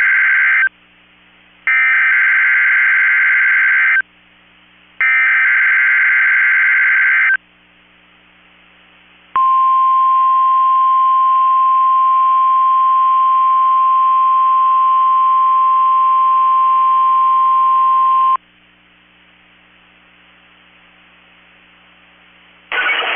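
NOAA Weather Radio Emergency Alert System signal for a test tornado warning. It starts with the SAME data header: harsh, buzzy warbling bursts, each a couple of seconds long, with about a second between them. Then comes the 1050 Hz warning alarm tone, a single steady beep held for about nine seconds, and after it a faint steady hum.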